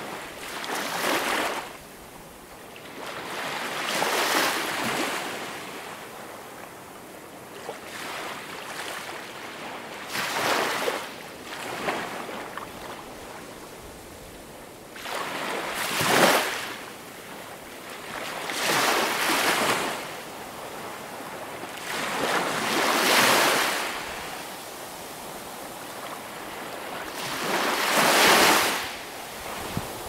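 Small waves breaking and washing up a pebble beach, each wave swelling into a hissing surge and then ebbing, every few seconds.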